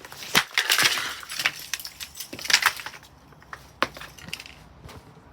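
A Blaupunkt fan heater being smashed: a burst of sharp cracks and clattering pieces for the first few seconds, then a few single knocks.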